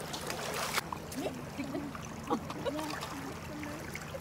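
Water splashing and trickling off a wet mesh fishing net lifted over a bucket, with a short rush of pouring water in the first second. Faint voices talk in the background.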